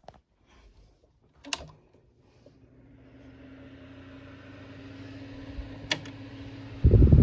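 A portable electric fan is switched on with a click. Its motor hum comes in, and the rush of air builds steadily as the blades spin up to speed. Another click follows, then a few loud low thumps near the end.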